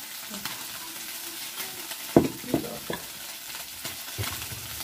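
Pork sizzling on a tabletop mookata grill pan, a steady hiss, with several sharp clicks of utensils; the loudest comes about two seconds in.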